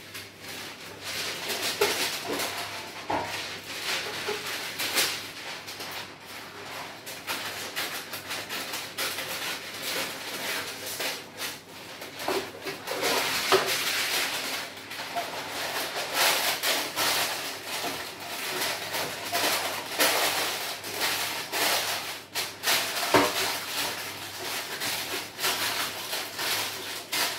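A sheet of baking paper rustling and crinkling as it is folded and pressed into a loaf tin. Irregular sharp crackles run throughout, with a few knocks.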